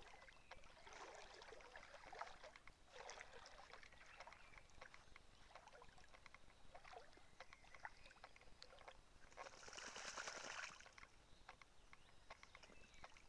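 Faint splashing and sloshing of water as a dog swims up to the bank and wades into shallow water among reeds, in uneven stretches, with a louder splash about ten seconds in.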